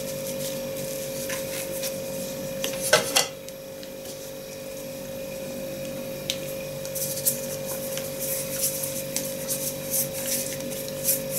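Starch-dusted hands rubbing, rolling a soft ball of sweet adzuki bean paste (anko) between the palms: a rapid, dry, scratchy rubbing from about seven seconds in. Earlier there are two sharp clicks about three seconds in, and a steady faint hum runs under it all.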